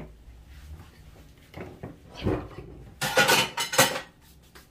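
Dishes and cutlery clattering in a kitchen sink: a few light knocks about two seconds in, then a louder run of clatter lasting about a second.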